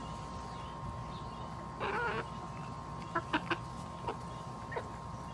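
Hens clucking as they peck at food: one longer call about two seconds in, followed by a string of short clucks.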